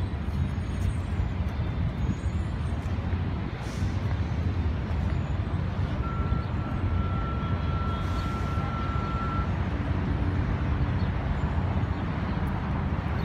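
Steady outdoor traffic rumble, low and continuous. A single steady high-pitched tone sounds over it for about three and a half seconds in the middle.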